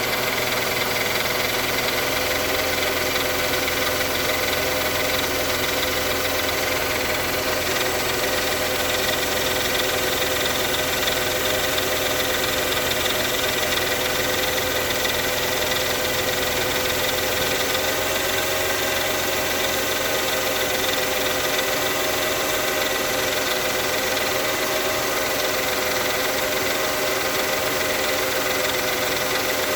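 Mercedes-Benz M112 V6 petrol engine running steadily at idle, making a sound that the owner calls strange.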